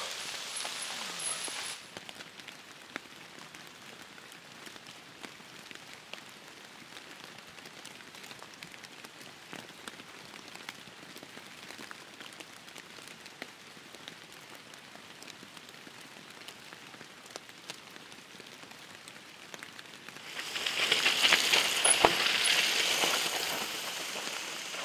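Mountain bike tyres rolling through wet, muddy trail as riders pass close by, a rising rush of noise with many small clicks and spatters near the end. Before that there is a long quiet stretch of faint scattered ticks, like dripping in a wet forest.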